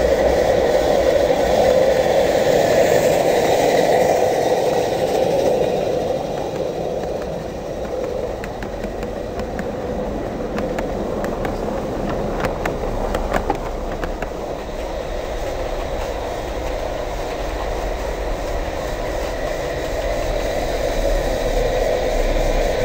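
A 16 mm scale live steam model train running past on garden track. There is a steady hiss from the steam locomotive, and about a third of the way in a run of sharp wheel clicks over the rail joints as the coaches pass close by.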